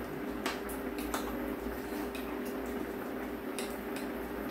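Metal spoon scooping budae-jjigae stew from a pot, giving a few light clicks and clinks against the pot, over a steady low hum.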